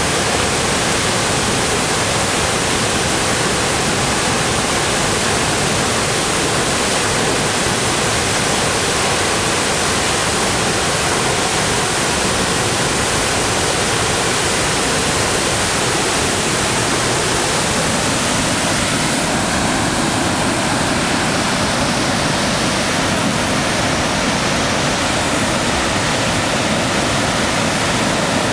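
The Pigeon River's waterfall, Minnesota's highest, pouring over its rock ledge in heavy flow: a steady, loud rush of falling water.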